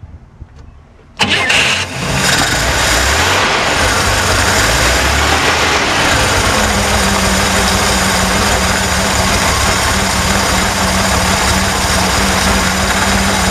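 1966 Corvair's air-cooled flat-six engine cranked and firing about a second in, then settling into a steady run. It starts readily on freshly fitted ignition points, the worn points having been the cause of its stalling and rough running.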